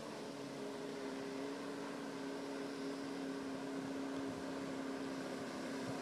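Yamaha 115 hp oil-injected two-stroke outboard on a Glastron runabout running at speed across open water: a steady engine drone that grows slightly louder as the boat comes closer.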